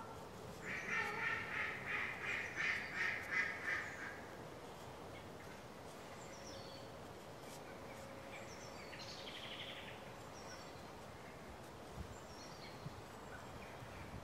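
A quick run of harsh bird calls, about three a second for some three seconds, followed by faint high chirping birdsong.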